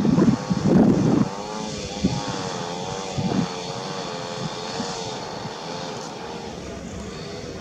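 Airbus A320neo's Pratt & Whitney PW1100G geared turbofans running at approach power as the airliner comes in to land: a steady engine tone with several pitches that waver up and down over a hiss. Low rumbles of wind on the microphone are loudest in the first second or so.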